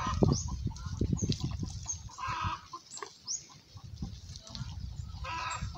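Three short farm-animal calls about two and a half seconds apart, with repeated brief high bird chirps and a low rumble in between.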